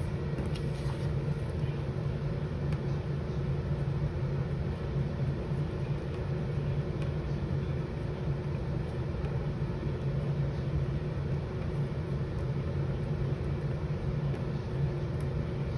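A steady low hum at an even level, like a machine or room background noise, with no distinct events.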